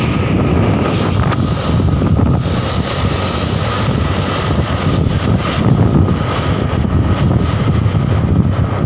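Wind buffeting the microphone of a moving vehicle, over a steady rumble of road and engine noise.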